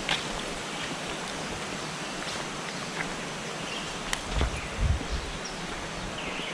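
Forest ambience: a steady hiss under scattered short bird chirps, with a few soft low thumps about four and a half seconds in.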